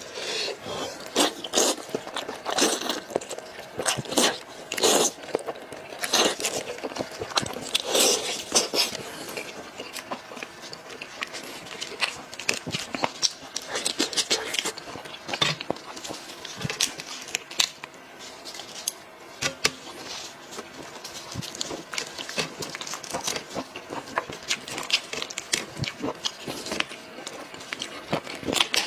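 Close-miked eating of a spicy braised sheep's head: meat torn from the head by hand and chewed, with many short irregular clicks and crackles of mouth and chewing.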